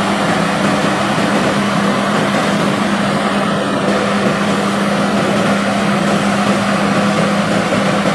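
John Deere 9660 STS combine running steadily while harvesting wheat: its engine and threshing machinery make a continuous, even drone with a steady low hum.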